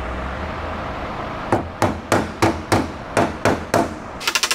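Hammer striking sheet steel on a pickup body panel: eight sharp metallic strikes at about three a second, each ringing briefly, followed near the end by a fast crackle of short clicks.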